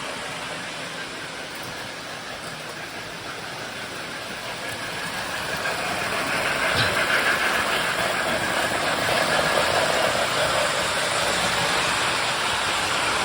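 O-gauge toy trains running on the layout track, a steady noisy running sound that grows louder about five seconds in and then holds.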